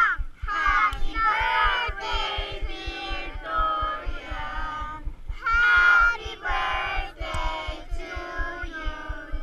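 A group of children and adults singing a birthday song together, in phrases with drawn-out held notes.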